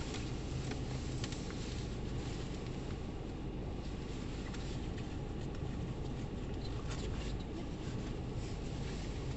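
Steady low hum and road noise inside a car's cabin while driving, with a few faint clicks.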